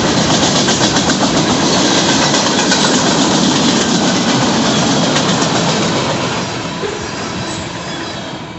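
Freight train cars (boxcars, then a tank car) rolling past close by: a loud steady rumble of steel wheels on rail with rapid clickety-clack clicking. The noise falls away over the last couple of seconds as the end of the train passes.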